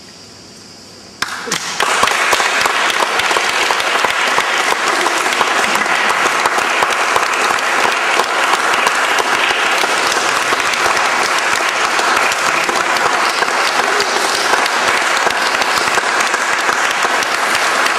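Audience applauding, breaking out suddenly about a second in and keeping up a steady, dense clatter of clapping.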